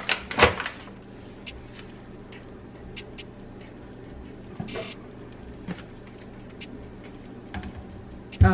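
Plastic bottles and packets of cleaning products knocking and clicking as they are moved and set down on the floor of a kitchen sink cabinet. There is a sharp knock about half a second in, a brief rustle near the middle, and a louder knock near the end as a spray bottle is put down. A steady low hum sounds underneath.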